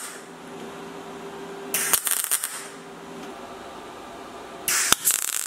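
MIG welder laying two short tack welds, each a crackling burst under a second, about three seconds apart, butt-welding a steel repair panel onto the bottom of a car door frame. A faint steady hum runs underneath for the first half.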